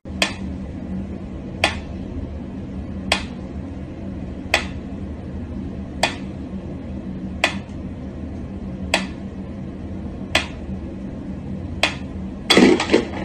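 Mechanical pendulum metronome ticking slowly, one sharp click about every second and a half, over a steady low hum. Near the end a louder clatter of knocks breaks the rhythm.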